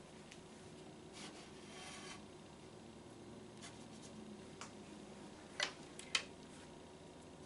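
Quiet handling sounds: faint rubbing about a second in, then a few small clicks and two sharper clacks near the end as tiny plastic toy kitchen utensils are picked up off a stone countertop.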